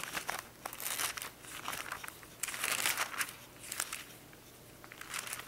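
Bible pages being leafed through: several rustling swishes of thin paper with a few light ticks. The loudest swish comes about two and a half to three seconds in.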